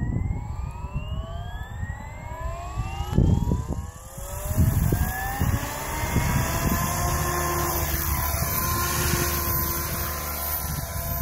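SAB Goblin 500 electric RC helicopter spooling up: the motor and rotor whine rises steadily in pitch over the first few seconds, then holds steady at head speed as the helicopter lifts off and flies. A low rumble with a few thumps, typical of wind on the microphone, runs underneath.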